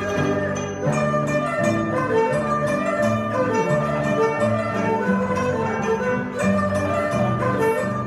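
A small traditional Chinese ensemble playing a tune: a guzheng plucked over two bowed erhu.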